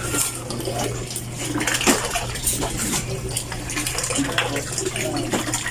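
Water sloshing and splashing in the wash tub of a Midea 8 kg twin tub washing machine, with irregular light clattering knocks over a steady low hum.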